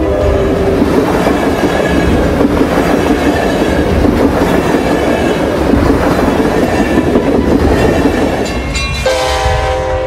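A train running past close by, a loud steady rumble and rush of wheel noise on the rails; about nine seconds in, the train's horn sounds a chord of several steady tones.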